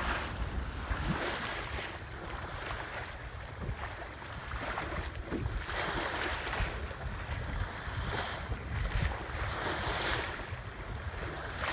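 Sea water rushing and splashing along a small sailboat's hull as it moves through a chop, swelling in surges every two to three seconds, with wind buffeting the microphone.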